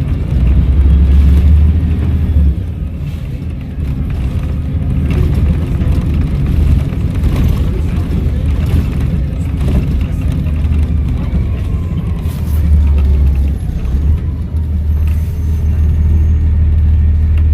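Volvo B7RLE bus's diesel engine running with a steady low rumble that grows louder for a few seconds at a time, with a faint turbo whistle gliding up and down above it.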